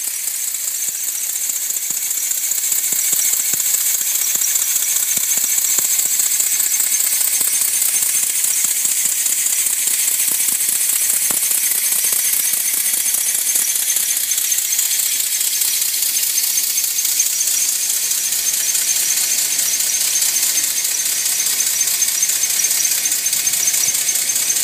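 Working model American La France steam fire engine running and pumping water: a steady high hiss with a very fast, fine ticking chatter. It builds up over the first couple of seconds, then holds steady.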